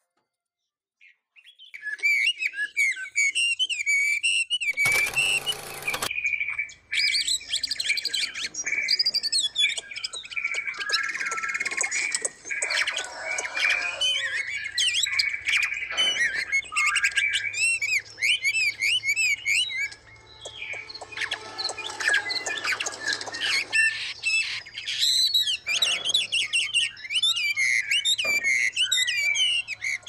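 A chorus of many songbirds chirping, trilling and whistling over one another, starting about a second and a half in. A short burst of noise comes about five seconds in.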